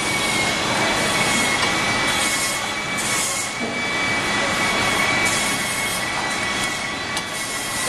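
Steady drone of running machinery with a thin, constant high-pitched whine over it.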